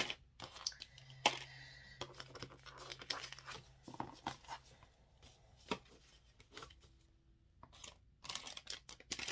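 Packaging rustling and crinkling, with scattered light clicks and knocks as items are picked up and set down on a desk.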